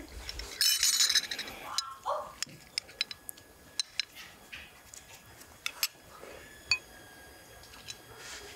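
Metal spoons clinking and tapping against ceramic bowls while seasoning is added and stirred in: sharp scattered clinks, with a brief rustling burst about a second in.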